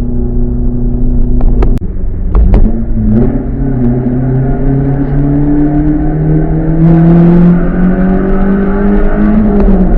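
Modified Subaru EN07 four-cylinder engine through a one-off RS-R exhaust with a flange silencer, pulling under load. A steady note is broken by a few sharp cracks and a brief dip around a gear change about two seconds in. Then comes a long pull, the pitch rising steadily until it drops off near the end.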